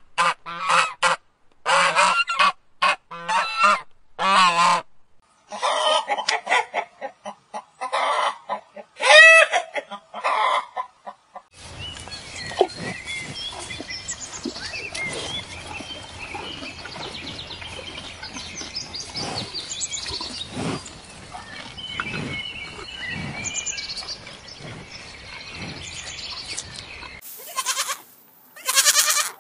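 Egyptian geese honking in a rapid series of short, harsh calls for about the first ten seconds. A quieter stretch of outdoor background with faint bird chirps follows, and near the end a young goat bleats twice, loudly.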